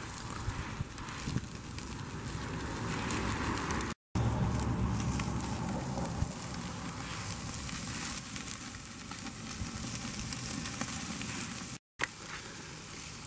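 Chuck eye steaks sizzling on a Weber kettle grill's grate over hot charcoal, with a steady crackle of small pops. The sound breaks off into silence twice, briefly.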